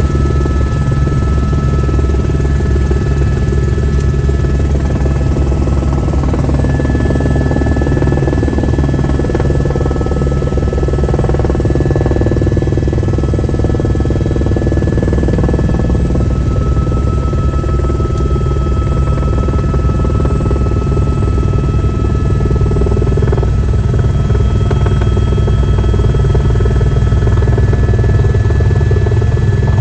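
Helicopter heard from inside the cabin: a steady, loud drone of rotor and engine with a few high, held whining tones above it.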